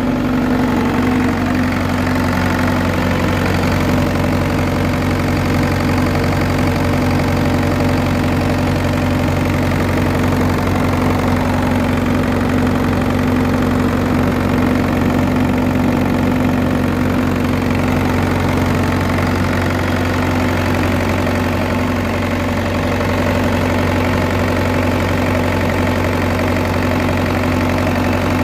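Engine of a 30 kVA generator set running steadily at constant speed.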